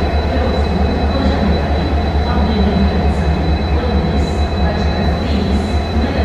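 EMD-built WDP4D diesel locomotive running with a steady, deep humming from its two-stroke V16 engine, with a thin high whine held steady above it.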